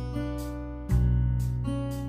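Background music: strummed acoustic guitar chords, a new strum about a second in.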